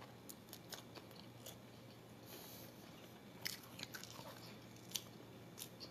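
Faint chewing of a mouthful of fried chicken sandwich: soft scattered mouth clicks and little crunches, a few more distinct ones about three and a half seconds in and again near five seconds.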